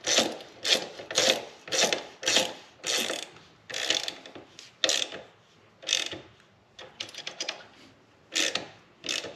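Socket ratchet clicking in repeated back-strokes as a bolt at a motorcycle foot peg mount is tightened, about two strokes a second at first, then slower and more irregular in the second half.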